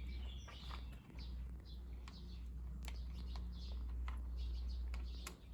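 Small birds chirping repeatedly in short high chirps, with a few small clicks and a steady low rumble beneath.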